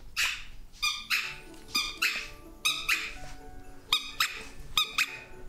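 Background music with a steady beat: sharp hits about twice a second over held low notes.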